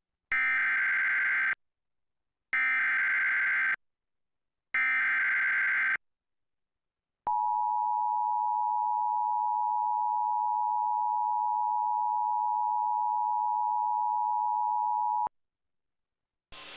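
Emergency Alert System activation on a TV broadcast: three SAME header data bursts, each a harsh digital warble of a bit over a second, then the EAS two-tone attention signal (853 and 960 Hz together) held steadily for about eight seconds and cut off sharply. This sequence announces an emergency alert, here a severe thunderstorm warning.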